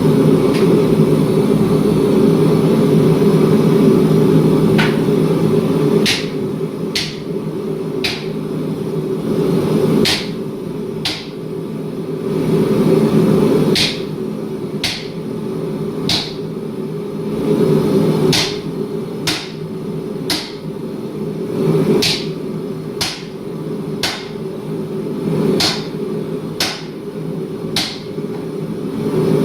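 Hammer blows on metal, sharp and unevenly spaced at about one a second, starting a few seconds in, over a steady low drone of running shop equipment.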